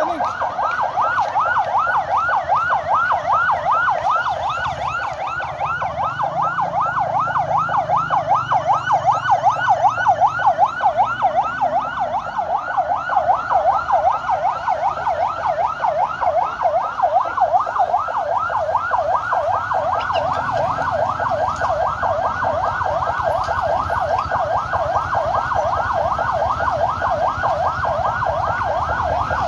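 Ambulance siren in a rapid yelp: a rising wail repeating about three times a second without a break.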